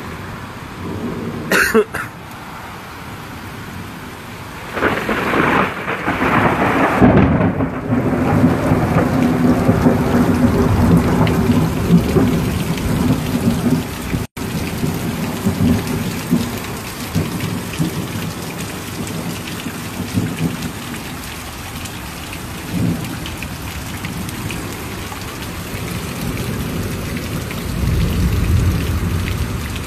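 Thunderstorm: steady heavy rain and wind, with a long rolling rumble of thunder that builds about five seconds in and rolls on for some ten seconds. A second, lower swell of rumble comes near the end.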